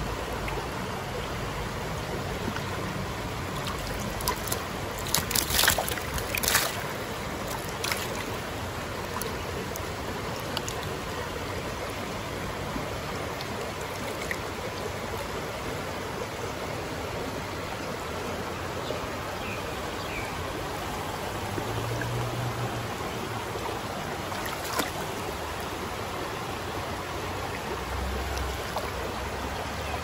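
Creek water running steadily, with a cluster of brief sharp sounds about five to eight seconds in and one more near the end.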